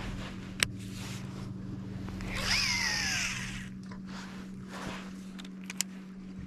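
A cast: fishing line whizzes off the reel about two and a half seconds in, with a whine that falls in pitch as the spool slows. A steady low hum and a couple of sharp clicks are heard around it.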